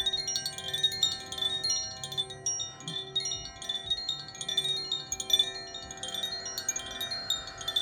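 Chimes tinkling: many small metal chimes struck in quick, irregular succession, their high bright tones overlapping and ringing on.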